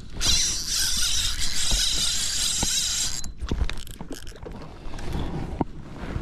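Fishing reel whirring as line pays out on a cast, for about three seconds, stopped suddenly, then a few light clicks and knocks of the reel and tackle.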